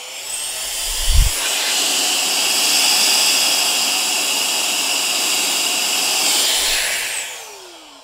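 KACNON VC43 cordless handheld vacuum/air duster's small high-speed motor and fan running: a high whine that finishes climbing as it spins up, holds steady with a rush of air, then falls as it winds down near the end. A low thump about a second in.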